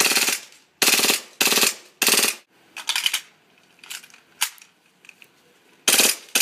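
KWA MagPul FPG airsoft gun firing short full-auto bursts, each a rapid rattle of shots lasting a fraction of a second. Five bursts come close together, then a lull with a single sharp shot about four and a half seconds in, and another burst near the end.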